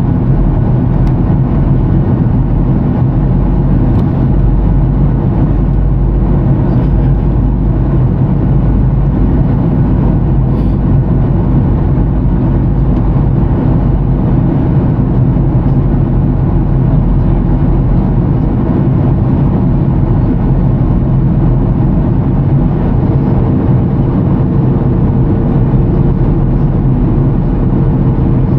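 Steady, unbroken drone of a Boeing 737-900ER's CFM56 jet engines and airflow as heard inside the airliner's cabin in flight, with a faint steady hum joining near the end.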